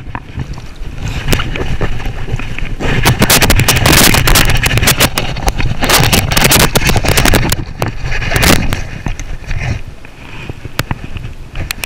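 Water splashing and sloshing as a hooked chain pickerel thrashes in the shallows and hands reach into the water to free it, with sharp slaps and a busy stretch in the middle, over a steady low rumble.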